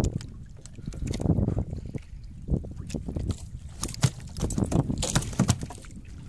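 Wind and sea noise on a small outrigger boat: an uneven low rumble that swells and fades, with a few short knocks about two and a half, four and five seconds in.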